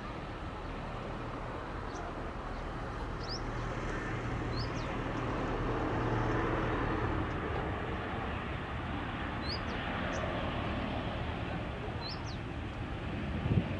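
Distant jet engine rumble from a SpiceJet Boeing 737 moving on the ground, swelling to its loudest about halfway and then easing. A few short bird chirps sound over it, and a short knock comes near the end.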